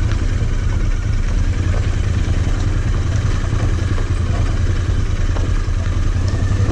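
Royal Enfield Interceptor 650's parallel-twin engine running steadily on the move, a low, even rumble.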